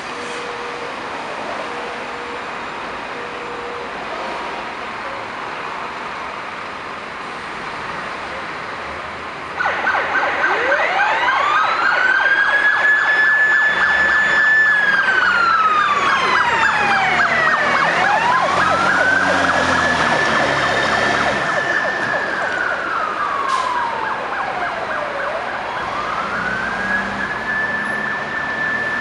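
Fire engine siren switched on about a third of the way in: a slow wail that rises, holds high, then falls, going through about three cycles. A truck engine rumbles underneath. Before the siren starts there is steady traffic noise.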